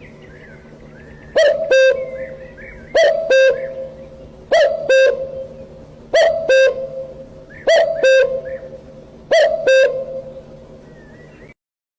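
A bird's loud double call, two pitched notes less than half a second apart, repeated about every second and a half, six times over. Faint small-bird chirps sound between the calls, and all sound stops suddenly near the end.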